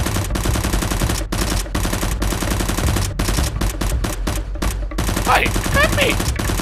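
Rapid automatic gunfire sound effects, dubbed over a Nerf blaster fight, firing in fast continuous bursts. A short wavering pitched sound cuts through about five seconds in.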